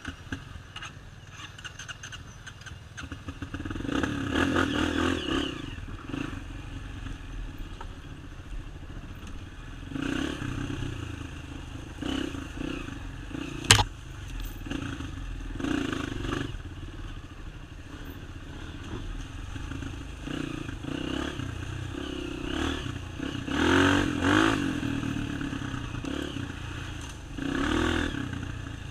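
Off-road motorcycle engine running on a dirt trail, swelling in repeated revving bursts, with one sharp knock about fourteen seconds in.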